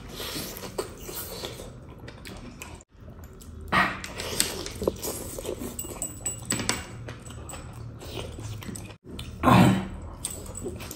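Close-miked eating by hand: chewing and smacking of mutton curry, with wet tearing and squelching of meat. Near the end comes the loudest sound, a bite into a raw onion ring.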